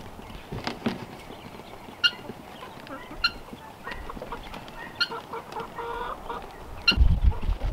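Chickens clucking, with short high chirps a few times, spaced a second or more apart, and a low rumbling bump near the end.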